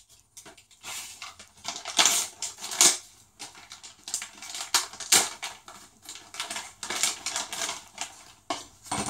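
Clear plastic parts bag crinkling and rustling as it is handled and opened, with irregular light clicks and knocks of hard parts.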